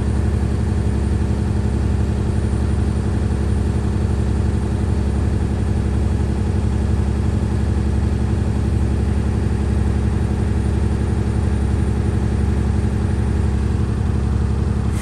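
Freightliner truck's diesel engine running steadily from the cab, left running to build air pressure and fill the air brake tanks.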